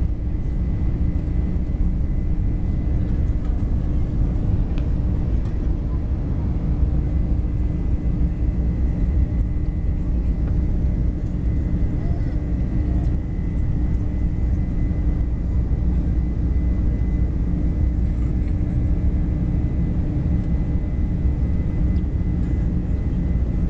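Airliner engine noise heard inside the passenger cabin: a steady low roar with a constant hum and a faint high whine above it.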